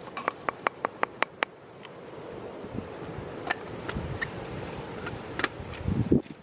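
A quick run of about seven sharp clicks, roughly five a second, in the first second and a half, followed by scattered lighter clicks and taps.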